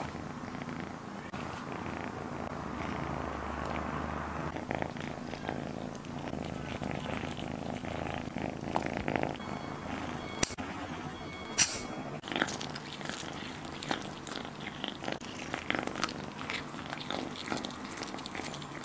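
Kitten eating cooked shrimp up close: chewing, licking and wet smacking, with many small clicks. Two sharper clicks come about halfway through.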